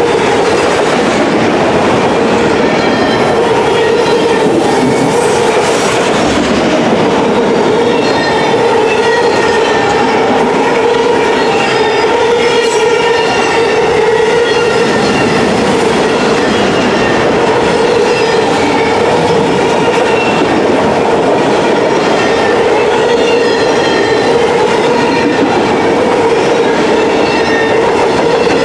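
Freight train of enclosed autorack cars rolling past at close range: a loud, steady rumble of steel wheels on rail. Under it runs a constant hum, with faint high ringing tones that waver and come and go.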